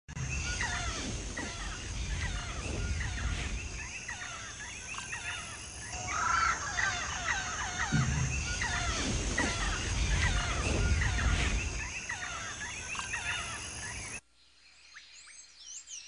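A dense chorus of many birds calling at once, with many short rising and falling chirps overlapping, over a steady high-pitched hum and a low rumble. About 14 seconds in it cuts abruptly to a much quieter scene with only a few scattered bird calls.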